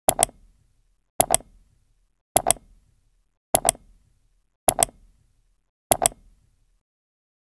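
Ticking sound effect for an animated countdown intro: sharp double clicks, like a clock's tick-tock, six pairs a little over a second apart.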